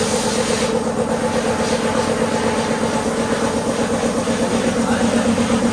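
Air compressor running with a steady, fast-pulsing hum.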